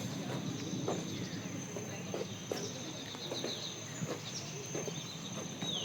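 Steady high-pitched drone of insects, with scattered short falling chirps and a few light taps.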